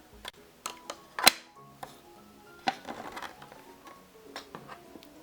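Soft background music with short plucked-sounding notes, broken by a handful of sharp clicks and taps, the loudest about a second and a half in.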